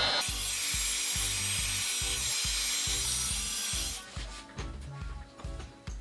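Heat gun blowing hot air over freshly poured epoxy resin to pop the air bubbles: a steady rushing hiss that cuts off about four seconds in. Background music with a steady beat runs underneath and carries on after.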